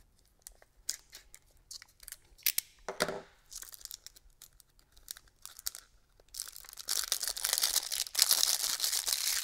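Packaging on a small microphone box being cut and opened: light scattered clicks and scrapes, then from about six seconds in, about three seconds of loud tearing and crinkling as the wrapping is peeled off.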